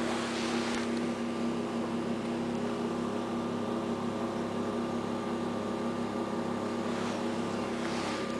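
EN57 electric multiple unit standing at the platform, humming steadily with several held tones. Brief hissing comes near the start and again near the end.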